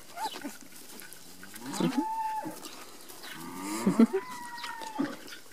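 A cow mooing twice, two long calls a couple of seconds apart, the second louder.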